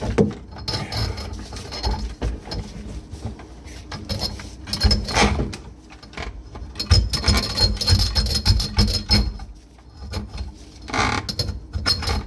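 Drain snake cable being worked by hand into a drain pipe toward the first bend, knocking and rattling irregularly against the pipe and the snake's drum. A thin high whine joins in about six seconds in and fades before the end.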